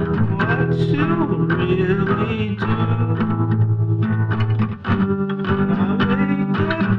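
Song: a sung vocal line over instrumental backing.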